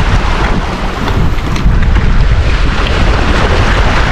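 Wind buffeting the microphone in a loud, steady rumble, over the wash of the sea.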